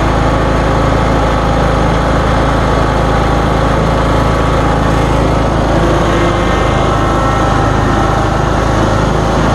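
John Deere 920 zero-turn mower engine running steadily at mowing speed, with an even hum and no pauses, while cutting thick, wet grass.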